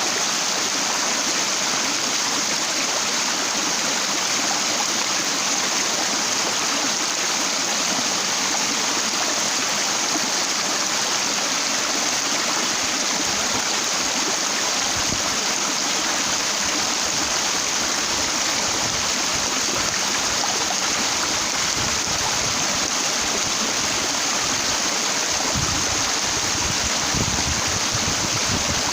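Stream water rushing over rocks in a steady, unbroken rush.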